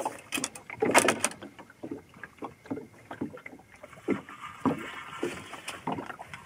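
Sea water lapping and slapping against the hull of a small boat, with irregular knocks and one louder burst about a second in.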